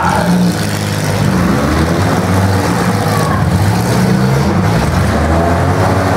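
Several demolition derby cars' engines running loud and revving together as the wrecked cars shove against one another.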